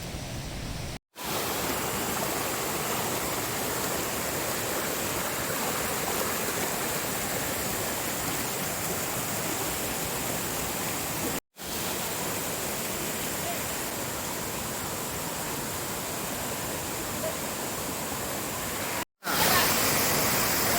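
Waterfall rushing, a dense, even noise with no pitch, broken by three brief dropouts where the clip is cut.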